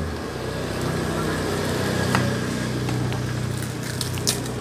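A motor vehicle engine running steadily at a constant pitch, with a few light clicks about two seconds in and near the end.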